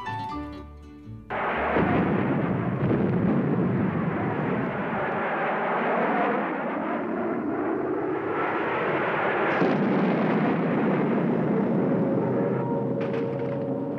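Battle sound effects of explosions and artillery fire: a loud, continuous rumble that breaks in suddenly about a second in, cutting off soft plucked-string music, with music coming back in underneath near the end.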